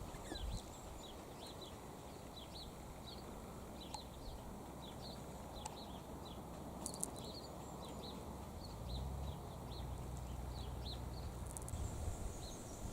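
Bird chirping: short high chirps repeating two or three times a second, with a low rumble coming in about nine seconds in.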